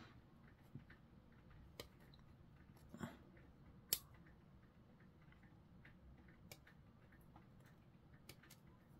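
A handful of faint, sharp clicks of sprue cutters snipping plastic model parts from the sprue, the sharpest about four seconds in, over near silence.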